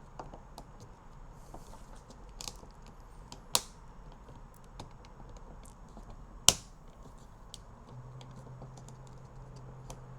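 Plastic door-handle trim of a Fisker Ocean being pressed onto the handle, with scattered light clicks and two sharp snaps about three and a half and six and a half seconds in as its clips seat.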